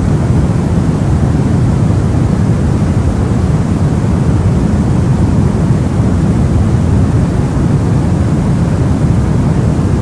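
Steady white noise made to soothe a crying baby, deep and rumbling, with most of its weight in the low end and a softer hiss above. It holds the same level throughout.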